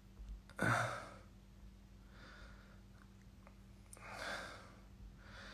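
A man breathing out audibly: four soft sighing exhalations about a second and a half apart, the first and loudest about half a second in.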